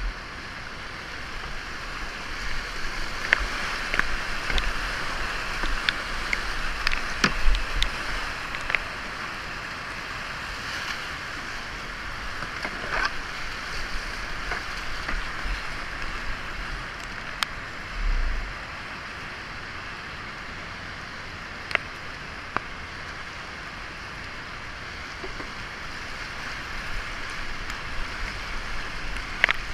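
Steady rush of whitewater rapids close around a kayak, with scattered sharp splashes and ticks from the paddle and water striking the boat, busiest in the first ten seconds.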